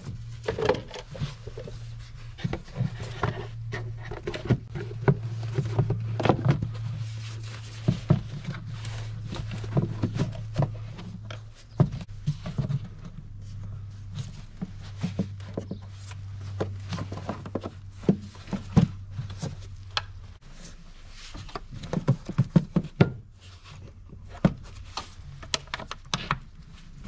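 Hard plastic engine air filter housing being handled and fitted back over the engine: an irregular run of clicks, knocks and scraping of plastic on plastic. Under it runs a low steady hum that stops about two-thirds of the way through.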